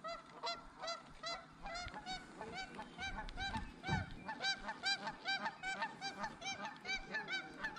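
Several geese honking over one another in a steady run of short calls, a few each second.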